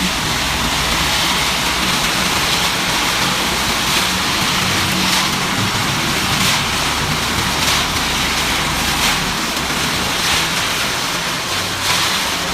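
Self-loading concrete mixer running: engine noise under a steady rushing hiss, with a soft stroke recurring a little over a second apart.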